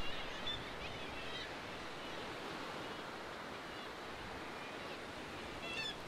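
Steady wash of sea surf, with a few faint, high kittiwake calls in the first second and a half and again just before the end.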